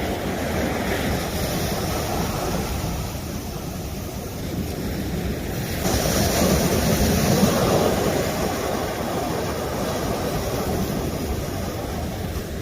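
Sea waves washing against the shore and rocks, with wind buffeting the microphone; a bigger wave surges in about halfway through.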